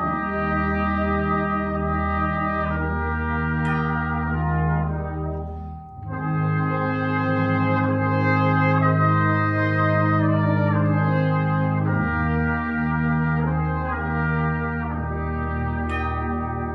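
Brass band playing held chords in slow phrases, with a brief gap between phrases about six seconds in.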